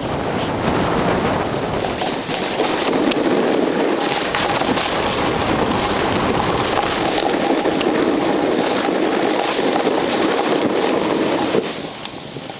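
Snow hissing and scraping under a rider on a fast downhill run, mixed with wind rushing over the microphone. It drops off suddenly near the end as the rider slows.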